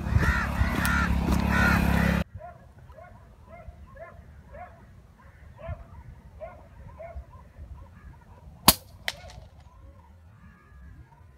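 A bird calls in a steady series of short rising-and-falling notes, about two a second, then a PCP air rifle fires once with a single sharp crack, followed about half a second later by a fainter crack. At the start there are about two seconds of loud rustling handling noise that cut off suddenly.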